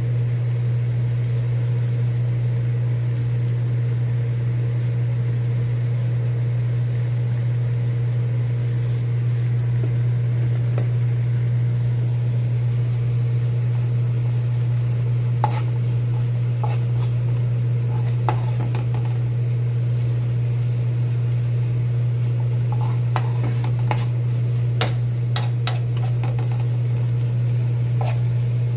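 A metal spoon stirring and scraping dried anchovies around a nonstick frying pan, with light sizzling and clicks of the spoon against the pan that come mostly in the second half. A steady low hum runs under it all and is the loudest sound.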